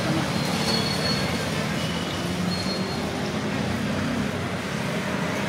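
Steady street traffic noise, a continuous rumble and hiss with no distinct events.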